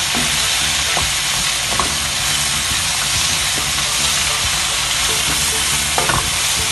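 Chopped onions, sweet peppers and zucchini sizzling in hot oil in a pan, stirred with a wooden spatula that knocks against the pan a few times.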